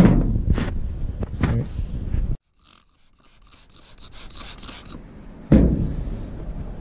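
Hands handling wiper blades and fitting a new blade to the wiper arm: rubbing, scraping and light clicks. The sound cuts off abruptly about two and a half seconds in, and a louder knock comes about five and a half seconds in.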